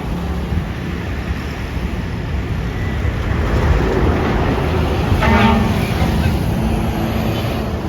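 A large bus passing close by, its engine and road noise loud and steady. About five seconds in there is a brief horn blast.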